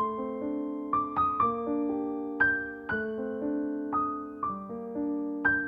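Background piano music: notes and chords struck about twice a second, each ringing and fading away.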